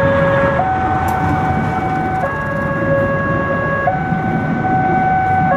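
Railway level-crossing warning alarm sounding a two-tone high-low signal, each tone held about one and a half seconds. Under it, the rumble of a passenger train passing the crossing in heavy rain.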